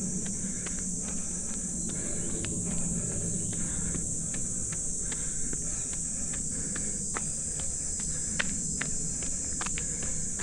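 Steady high-pitched drone of summer insects, with light footfalls of a runner on a trail, about two or three a second.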